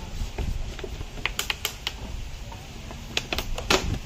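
Irregular clicks and taps of a clear plastic jar with a screw-on lid being handled, with a louder knock near the end as it is set down on concrete.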